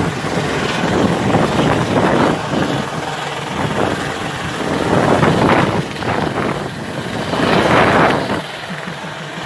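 Helicopter flying over, a loud, steady din of rotor and engine noise that swells twice, about halfway through and near the end.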